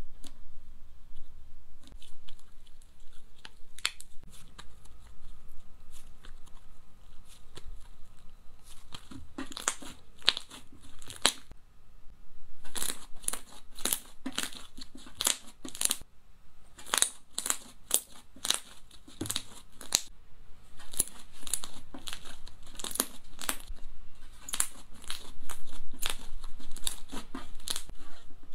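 Thick pink slime being pressed, folded and stretched by hand, crackling and popping. Scattered crackles at first, then from about a third of the way in, dense runs of rapid crackles with each squeeze and fold.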